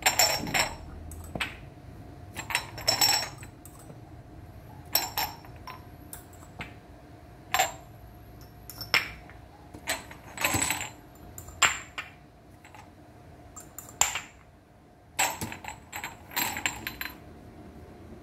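Glass cupping cups clinking and tapping against one another as they are handled and set on a bare back during fire cupping. It is a dozen or so irregular sharp clinks with brief ringing, some in quick clusters, over a faint steady hum.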